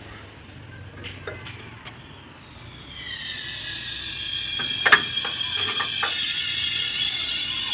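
R134a refrigerant hissing out of a car's air-conditioning system through an opened manifold gauge set. The hiss comes in about three seconds in with several high whistling tones and holds steady, with a sharp click about a second later.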